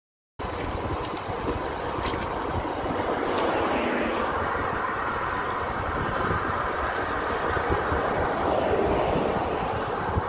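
Road and traffic noise with wind rushing over the microphone of an e-bike rider's camera, cutting in suddenly about half a second in; passing cars swell and fade in the rush.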